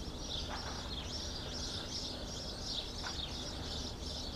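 Many small birds chirping at once in a dense, continuous chorus, over a steady low background rumble.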